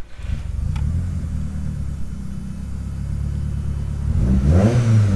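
Mk2 Volkswagen Golf GTS engine idling, then revved once near the end, its pitch rising and falling back.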